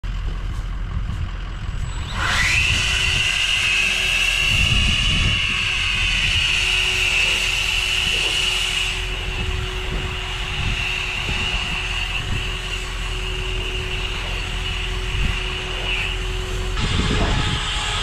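Battery-powered EGO 56V backpack leaf blower spinning up about two seconds in to a steady high whine and rush of air as it blows snow, its hiss easing partway through. A constant low rumble runs underneath.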